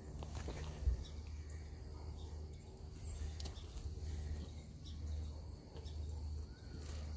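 Outdoor background: a steady low rumble with a single thump about a second in, and faint scattered chirps of birds or insects.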